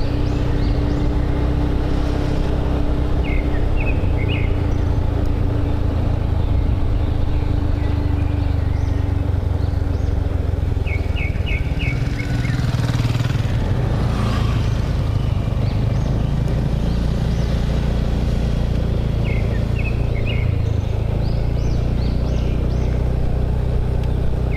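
Motorbike engine running steadily at cruising speed, with wind and road noise. Birds chirp in short bursts several times, and a brief swell of noise rises and falls about halfway through.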